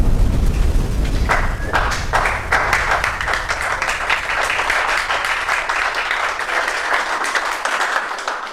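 Audience applauding and clapping, building from about a second in and tailing off near the end, over the low rumble of a boom dying away at the start.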